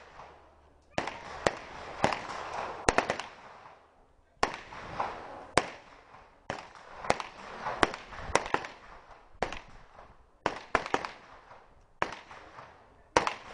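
Gunshots from several shooters firing at once: about twenty single shots at uneven intervals, some in quick pairs, each followed by a ringing echo.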